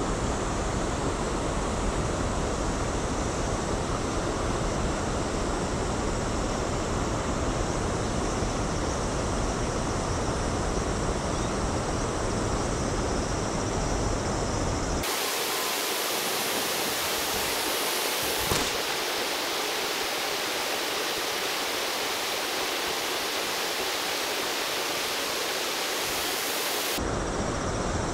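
Steady rushing of river water. About halfway through the sound turns abruptly from a deep, full rush to a thinner, brighter hiss with the low end gone, and switches back shortly before the end.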